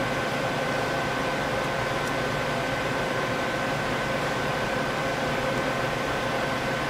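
Doosan Puma 2500LSY CNC lathe running steadily under power: an even mechanical hum and hiss with a constant high whine that holds one pitch.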